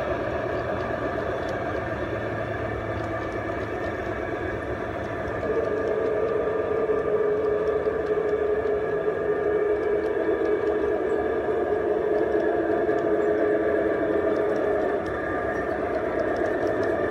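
Freight cars rolling past on the rails: the continuous rumble of wheels on track, with a steady whine over it that gets louder about five seconds in and eases a couple of seconds before the end.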